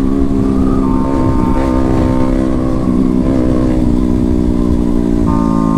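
Sport motorcycle engine running at road speed under steady throttle, its note dipping and rising briefly a couple of times.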